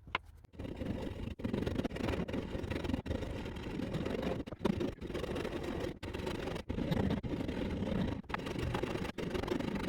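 Power sander running against a block of oak, a steady motor-and-abrasive drone broken by brief dropouts about once a second.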